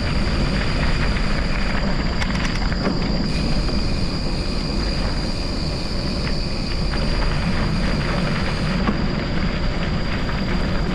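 Steady rumbling wind and road noise from riding over rough off-road ground, with wind buffeting the microphone and tyre rumble.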